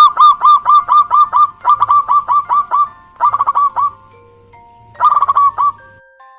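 A bird calling in quick runs of repeated short, hooked notes, about five a second, in three bursts: a long run at the start, a short one about three seconds in and another about five seconds in.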